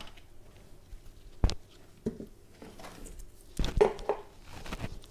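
Gerbil-cage accessories being handled and set down during a cage clean-out: a few scattered knocks and light clatter, the loudest a quick cluster of knocks about three and a half seconds in.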